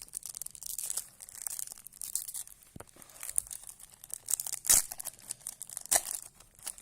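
A Topps Slam Attax trading-card pack's wrapper being torn open and crinkled, with two sharper, louder rips about two-thirds of the way through and near the end.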